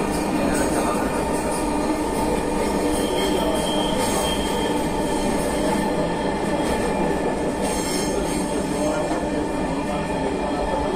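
Dhaka Metro Rail train running at speed, heard from inside the passenger car: a steady running noise of wheels on the track with steady tones from the running gear, and brief higher hissy patches now and then.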